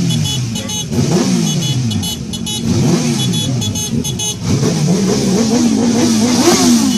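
Engines revving up and down again and again, with clusters of short high beeps over them.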